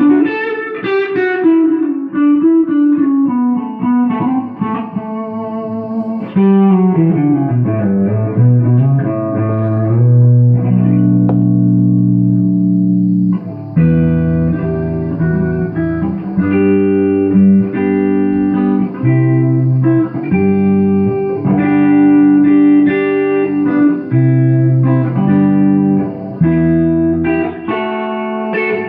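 Takamine GX-100 electric guitar played through a small tube amp. It opens with notes sliding steadily down in pitch over several seconds, then settles into held notes and a run of repeated chords with short breaks between them.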